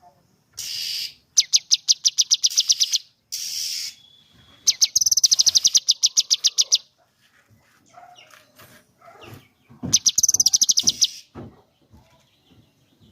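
Cucak kinoi singing its rapid-fire 'tembakan' song: three bursts of fast repeated high notes, about ten a second, each lasting one to two seconds, with short harsh hissing calls between the first bursts.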